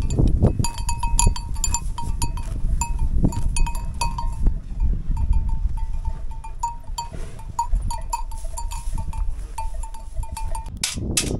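Livestock bells clinking irregularly and many times over, as a grazing flock moves about, over a steady low rumble. A short burst of hiss comes near the end.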